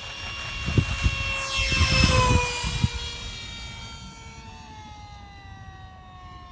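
Electric RC model airplane flying past: a high whine with many overtones that slides down in pitch as it passes, loudest about two seconds in, then fading away. Low buffeting on the microphone while it passes.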